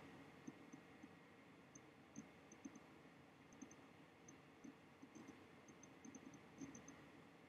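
Faint, irregular clicks of a computer mouse over a low background hiss.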